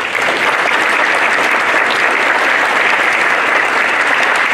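Audience applauding, a dense steady clapping that ends a talk.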